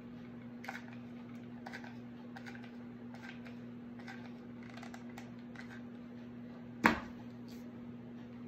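A hot glue gun's trigger clicking faintly and repeatedly as glue is squeezed out in lines, then a single sharp knock about seven seconds in as the gun is set down on the table.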